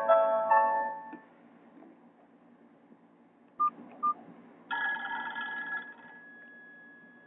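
Nokia E65 ringtones played from a Nokia 216's speaker. A melody of quick electronic notes ends about a second in, two short beeps follow, and a new tone starts with a bright chord about five seconds in, leaving one held note that fades away.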